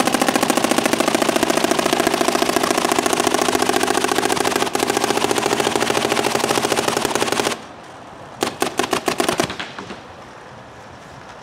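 Dye M3+ paintball marker firing a long rapid string at about 15 balls a second, which stops suddenly about 7.5 seconds in. About a second later comes a short burst of several more shots.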